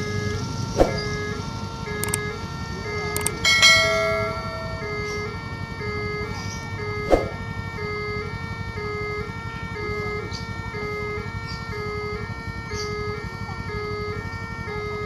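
Electronic warning alarm of a railway level crossing sounding with the barriers down: a two-tone signal switching between a high and a low pitch about twice a second, repeating steadily. About three and a half seconds in, a sharp knock followed by a short ringing tone is the loudest moment, with a few fainter clicks at other times.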